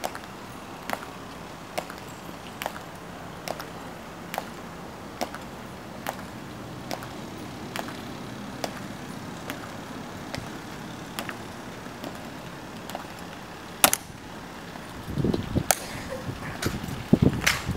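Steady, slow marching footsteps of the Tomb guards: sharp heel clicks of metal-tapped dress shoes on the stone plaza, about one a second. Near the end, a louder click is followed by a cluster of dull thumps and knocks.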